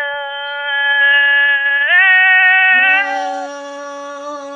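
A woman singing khắp, Thái sung verse, in long held notes that step up in pitch about two seconds in. Her voice comes through a phone. Near the three-second mark a second, lower held voice joins in.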